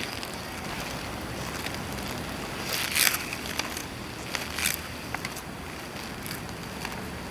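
Inline skate wheels rolling over rough concrete, a steady hiss, with a loud scrape about three seconds in and a shorter one about a second and a half later, plus a few small clicks as the skates weave and slide.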